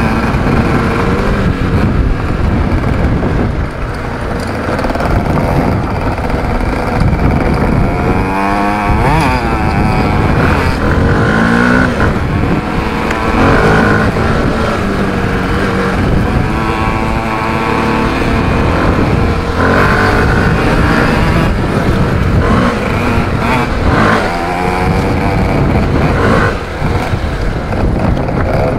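Small off-road motorcycles, a Yamaha DT50 and a WR125, riding a dirt trail. Their engines rev up and drop back again and again as they change gear, loud throughout.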